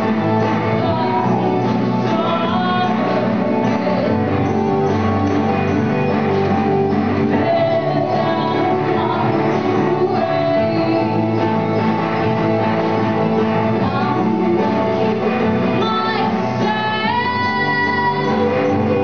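Cello playing sustained notes with a woman singing over it; the voice rises clearly above the cello near the end.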